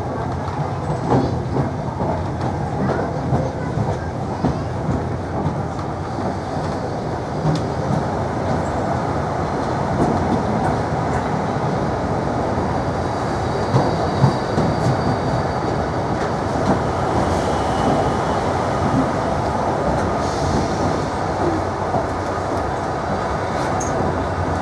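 Class 321 electric multiple unit running, heard from inside the carriage: a steady rumble with the wheels clattering over rail joints and pointwork.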